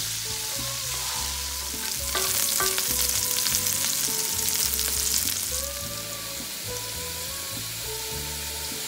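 Cauliflower florets shallow-frying in mustard oil in a nonstick pan, sizzling and spattering as they are stirred with a spatula. The sizzle is loudest from about two to five and a half seconds in.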